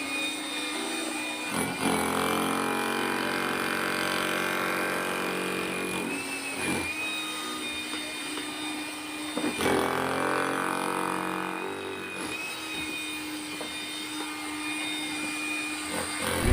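A power tool's motor running steadily, its pitch shifting a few times.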